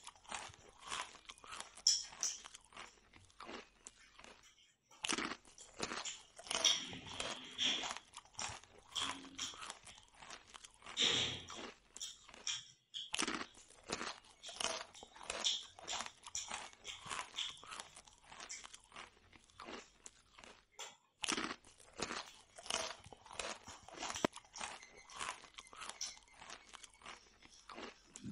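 A person chewing and crunching puri dipped in potato gravy, in quick, uneven crunches with a few short pauses.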